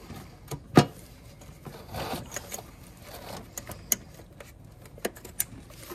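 Hands handling nylon fuel lines and their fittings in a truck's engine bay: scattered clicks and knocks with some rustling, the sharpest click about a second in.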